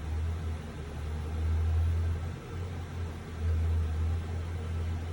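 CNC machine running through a program, giving a steady low hum that swells and dips a couple of times.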